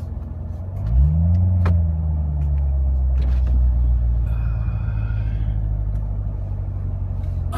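Car engine heard from inside the cabin, rising in pitch as the car pulls forward about a second in, then running steadily at low revs as it rolls along.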